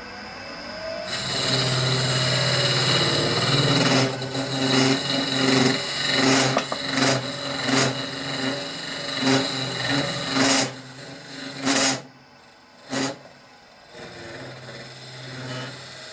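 Wood lathe running with a steady hum while a hollowing cutter on a homemade hollowing rig cuts inside a horse chestnut hollow form, in repeated scraping bursts. The cutting pauses for about two seconds near the end, broken by one short cut.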